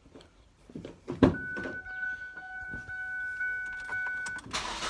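Ignition sequence of a 2005 Ford Focus: a sharp click about a second in, then a steady high electrical whine for about three seconds with the key on, then the starter begins cranking near the end.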